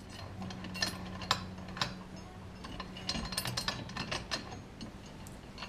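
Irregular metal clicks and clinks as bolts, nuts and small fittings are handled and fitted onto the aluminium frame of a Granberg Alaskan chainsaw mill. The clicks come thickest about three to four seconds in.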